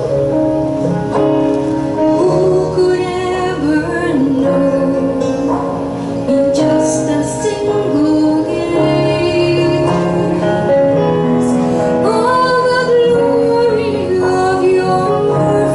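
A woman sings a solo sacred song into a handheld microphone over a steady instrumental accompaniment.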